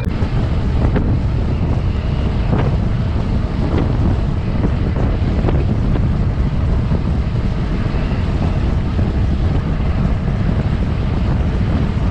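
Steady wind buffeting the microphone while riding an electric bike at speed, with a few light knocks from the ride.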